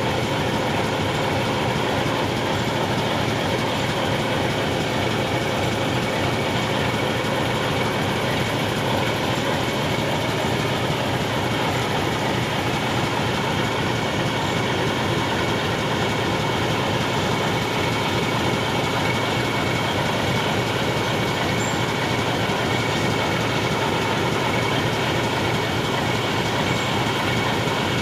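Indian Railways YDM4 metre-gauge diesel locomotive's ALCO 251 six-cylinder engine idling, an even, unchanging running sound with a faint steady whine over it.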